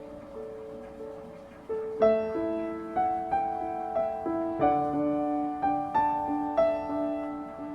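Background music: solo piano playing a slow, gentle melody, softer at first and fuller and louder from about two seconds in.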